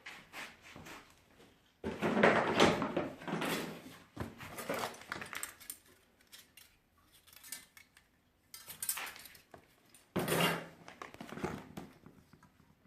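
Hard parts being handled and set down, clattering and clinking in uneven bursts, loudest twice.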